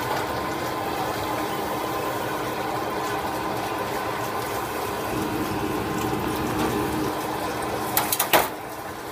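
Steady commercial-kitchen background noise, a running hiss with a faint hum, and a few sharp knocks and clatters about eight seconds in.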